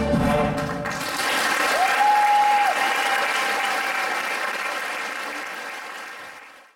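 The dance music ends about a second in and an audience applauds, with one short whistle a second later. The applause fades away near the end.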